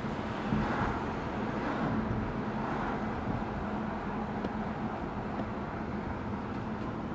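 Car driving through town traffic at about 40 km/h: steady road and tyre noise with a low hum.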